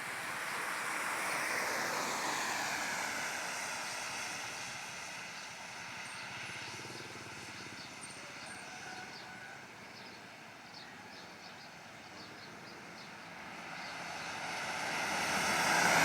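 A vehicle passing on a wet road, its tyre hiss and engine swelling in the first couple of seconds with a falling pitch, then fading away; near the end another vehicle approaches and grows louder.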